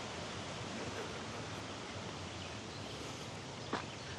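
Steady outdoor background hiss, an even rushing noise with no clear pitch, with a single short click a little before the end.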